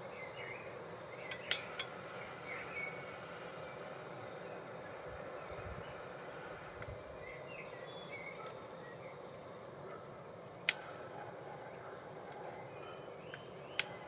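Three sharp cracks of kindling, about a second and a half in, near eleven seconds and just before the end, from a freshly started small wood fire of pine cone, twigs and cedar shavings in a Kelly Kettle's fire base, over a steady low background with faint chirps.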